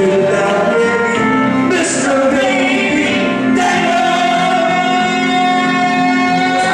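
Live singing into a microphone over loud musical backing, with a long held note in the second half.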